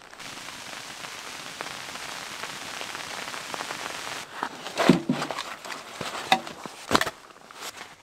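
Wind-driven snow pelting tent fabric, a steady hiss. About four seconds in it gives way to several knocks and thuds, the loudest a little under five seconds in, as snow-covered pieces of firewood are set down on the tent floor.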